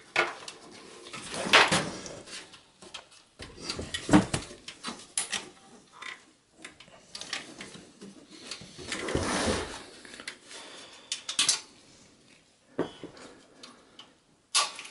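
Handling noises from a desktop PC's sheet-metal case and cables being worked on by gloved hands: irregular clicks, knocks and rustles, the loudest knocks about one and a half and four seconds in, with a longer rustle around nine seconds.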